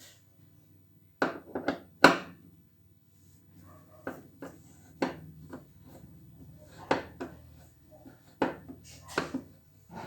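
Irregular knocks and clatter of tools and parts being handled while a washing machine is taken apart, a dozen or so sharp strikes in small clusters, over a low steady hum.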